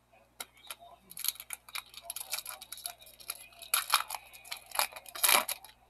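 Foil wrapper of a 2013 Panini Prizm baseball card pack crinkling and tearing as gloved hands rip it open. It makes a quick run of sharp crackles, loudest around four seconds in and again near the end.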